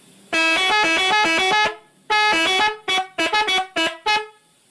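Multi-tone musical truck air horn (a 'telolet' horn) playing a quick tune: a run of notes for over a second, a second short phrase, then several short toots.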